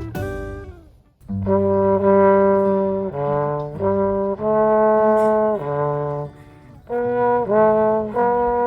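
Brass ensemble music of slow, sustained chords. After a short pause about a second in, the held chords change every second or so.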